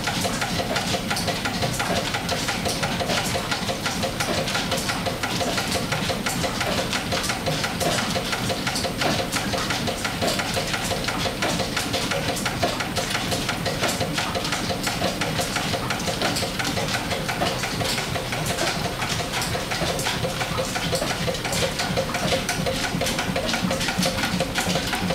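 Small horizontal stationary steam engine running steadily under steam, driving a flat belt to the line shaft: a fast, even mechanical beat with a constant hiss.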